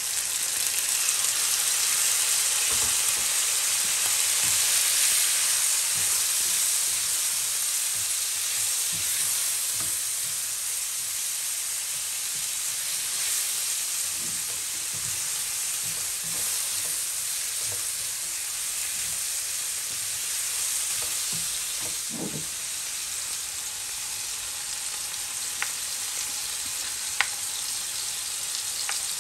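Food frying in oil in a pan: a steady sizzle, loudest in the first several seconds and easing a little after. A couple of light clicks come near the end.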